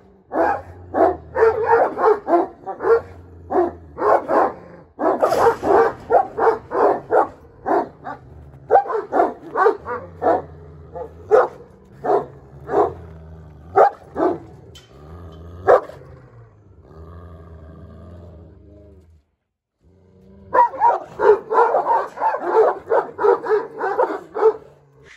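Kangal shepherd dogs barking at one another through a kennel's wire fence, in rapid, dense runs of barks that break off for about a second roughly three quarters of the way through.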